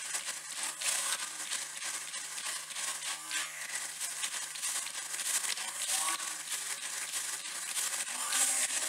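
Hissy, crackling ambience of a large gym hall, with scattered slaps of hands meeting in high-fives.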